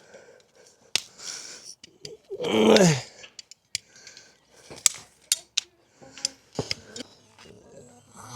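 Sharp, irregular clicks and snips of farrier's tools working on a horse's hoof. About two and a half seconds in there is one loud, short vocal sound that falls in pitch.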